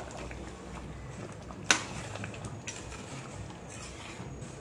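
A ladle stirring thick potato curry in a stainless steel kadai: soft stirring noise, one sharp clink of metal on the pan about two seconds in, and a few lighter taps after it.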